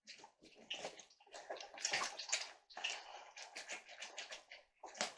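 A lemon squeezed by hand, with faint irregular squelching of fruit and juice dripping into the dressing.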